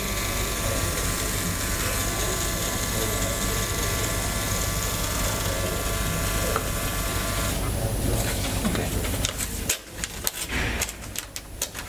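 Cardiac monitor's built-in strip printer running steadily as it feeds out a printed ECG trace, with a motor whine and hum. It stops about eight seconds in, followed by a few clicks and paper rustling as the strip is handled.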